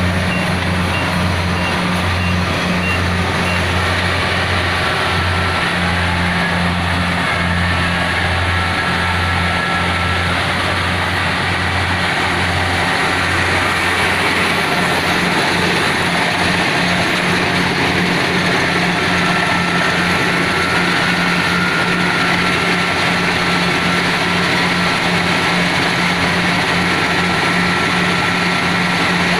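Kubota DC70PH+ combine harvester running steadily: a continuous low engine hum under a dense mechanical rush. The deepest part of the hum drops away about halfway through.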